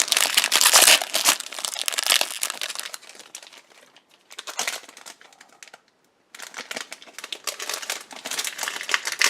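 Foil Pokémon booster pack wrapper crinkling as it is handled and opened, in two spells with a quiet pause of about three seconds between them.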